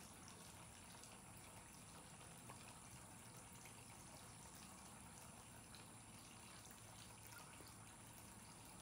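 Near silence: a faint steady hiss with a thin high whine, and a few faint small water splashes from a dog sitting in a water-filled ceramic bowl.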